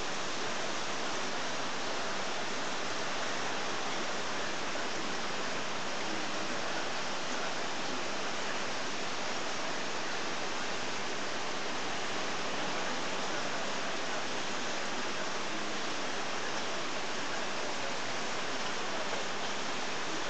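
Steady rushing, water-like noise of a reef aquarium's circulation and filtration running, even throughout with no distinct splashes or knocks.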